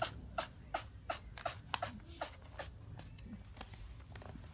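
Kitten making quick, rhythmic little clicks with its mouth, about two or three a second, thinning to a few scattered clicks after about two and a half seconds.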